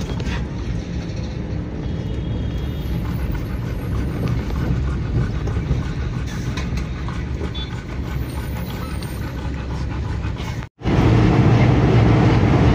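Steady engine and road rumble heard from inside the cabin of a moving Maruti Suzuki Eeco van. Near the end it cuts out for an instant and comes back louder.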